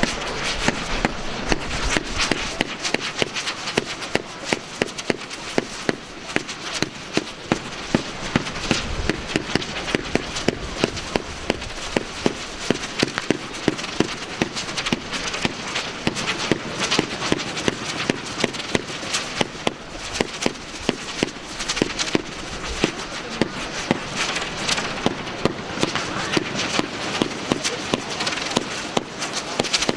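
Aerial fireworks going off in quick succession: a continuous run of sharp, irregular pops and crackling, several a second.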